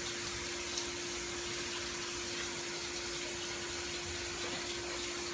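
Broth simmering in a pan with pork steaks being laid back into it: a steady hiss over a steady low hum, with a faint tap about a second in.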